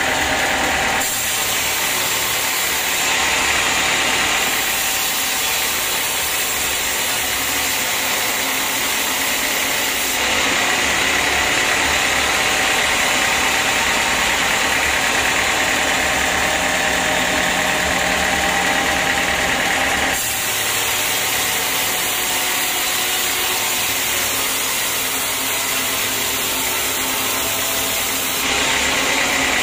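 Band sawmill running and its blade cutting lengthwise through a teak log, a loud steady machine drone with a high whine in it. The sound changes abruptly several times.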